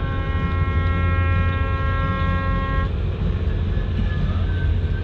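A ship's horn sounding one long steady blast that cuts off about three seconds in, over a steady low rumble.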